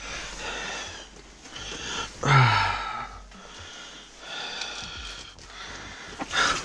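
A man breathing hard after fighting and landing a big pike: about four heavy, breathy exhales. The loudest, about two seconds in, starts with a short voiced groan.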